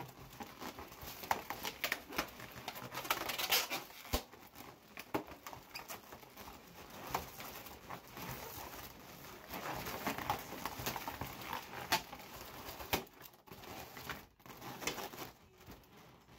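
Latex balloons rubbing and squeaking against each other as they are handled, with many small scattered clicks and rustles that thin out near the end.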